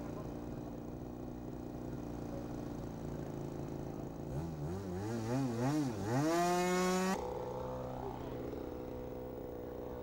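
Big Stik model airplane's engine running at idle, then revved: the throttle is worked up and down a few times, opened to full for about a second and dropped suddenly back to idle.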